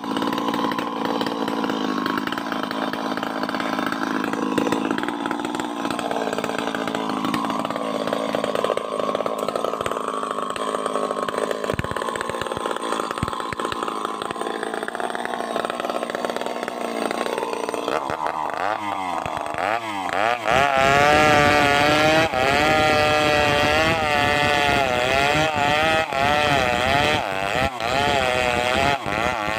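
Chainsaw engine running under load while cutting wood, its pitch wavering. A little over halfway through the pitch sweeps up and down sharply, and the saw then runs higher with a wobbling pitch.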